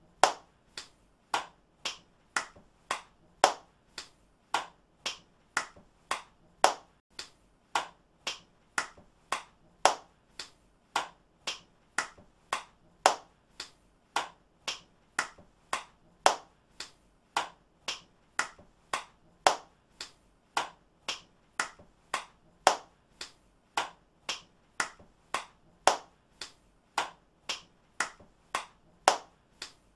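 One person's hand claps repeated in a steady loop, about three claps a second.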